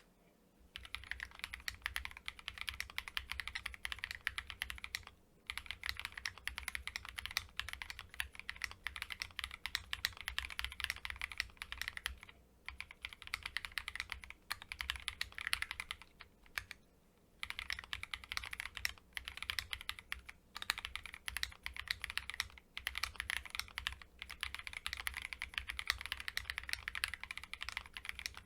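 Fast typing on an Akko ACR Pro Alice Plus gasket-mounted mechanical keyboard. A rapid run of keystrokes starts about a second in and goes on, broken by several short pauses.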